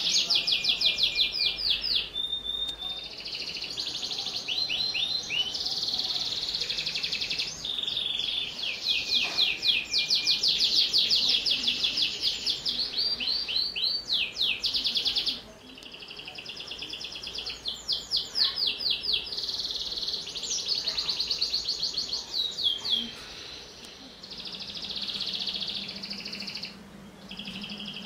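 Domestic canary singing a long, almost unbroken song of high trills and rolls, each phrase a fast run of the same note repeated, with a few short breaks.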